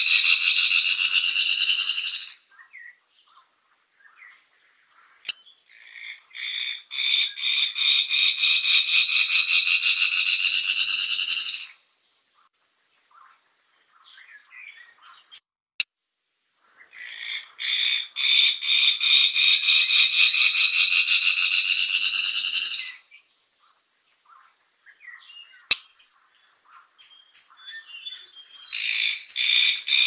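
Fire-tufted barbet song: long rapid pulsing trills of about five to six seconds each. One ends about two seconds in, another runs from about six to twelve seconds, a third from about seventeen to twenty-three seconds, and a fourth starts near the end. Short chirps fill the gaps between them.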